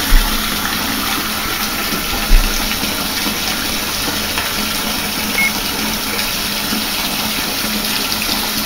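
Bathtub tap running steadily, water pouring into the tub. Two low thumps, one just after the start and one about two and a half seconds in, are the loudest sounds.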